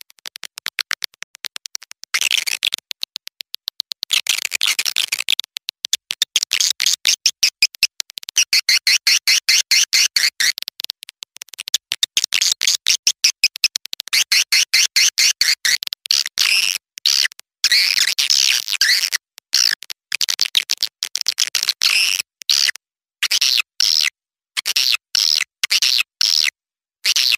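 Swiftlet calls of young birds: rapid, high chirping and clicking chatter in bursts of a second or two, broken by short gaps. A lure track of the kind played to draw swiftlets into a nesting house.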